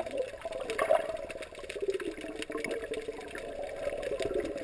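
Muffled underwater water noise heard through a camera's waterproof housing, with a steady crackle of bubbles as air streams from a submerged snorkel.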